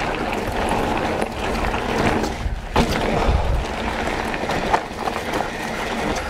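Mountain bike riding fast down a gravel singletrack: steady rolling noise of the tyres, including a Schwalbe Magic Mary Ultra Soft up front, on loose gravel, with short knocks and rattles from the bike over bumps and a low rumble about three seconds in.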